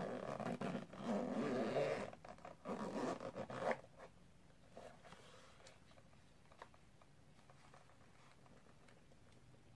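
Zipper on a hard-shell camera carrying case pulled open in two long runs, the second ending a little under four seconds in.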